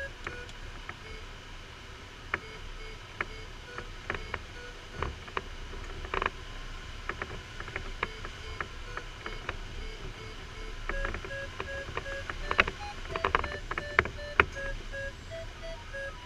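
Glider variometer beeping in short, evenly spaced tones that signal the glider is climbing; the pitch is lower through the middle and rises in the last few seconds. Scattered sharp clicks and knocks in the cockpit over a low airflow hiss, the loudest cluster of knocks coming about three-quarters of the way through.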